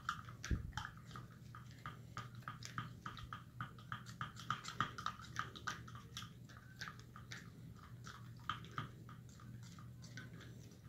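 A stick stirring a liquid glue mixture in a cup: many quick, irregular clicks and wet scrapes, several a second, as the stick knocks and drags against the cup.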